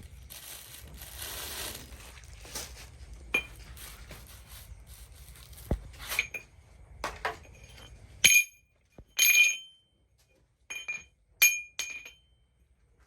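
Knocks and handling noise over a low rumble, then about five sharp metallic clinks in the second half, each ringing with a bright tone: metal pieces struck or knocked together.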